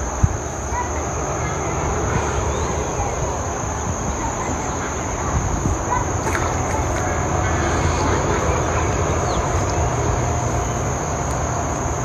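Steady high-pitched insect drone over a low rumble, with one sharp click just after the start.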